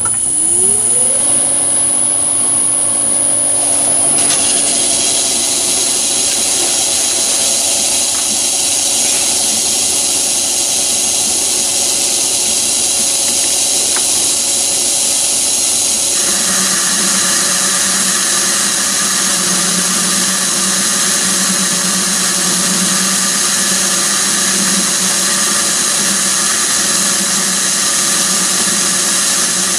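Myford ML7 lathe motor spinning up over the first second and then running steadily with a high whine. About 16 seconds in, a small 12 V geared motor driving the slide's feed handle starts, adding a buzzing hum on top.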